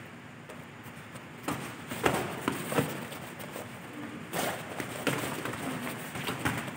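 Boxing gloves landing in a sparring exchange: sharp thuds in two flurries, the first starting about a second and a half in, the second a little past the middle.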